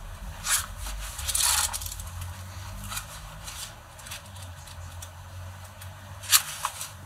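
Paper pages of a handmade scrapbook notebook being turned and handled: a few short rustles, a longer swish about a second and a half in, and a sharp tap near the end.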